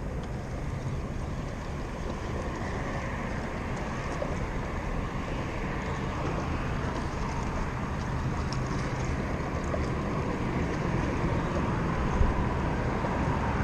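Steady outdoor rumble with a hiss over it, growing slightly louder toward the end, with no single event standing out.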